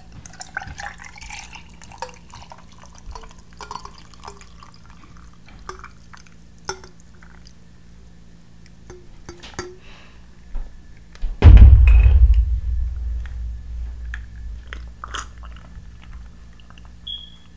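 Red fruit drink poured from a bottle into a glass of ice cubes, the pour rising in pitch as the glass fills, followed by small clinks of ice against the glass. About two-thirds of the way through there is one loud, low thump that fades over a few seconds.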